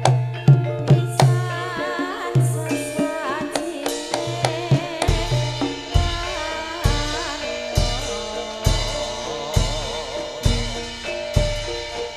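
Javanese gamelan music driven by hand drumming, with melodic lines over it. About five seconds in, a deep drum beat sets in, about once a second.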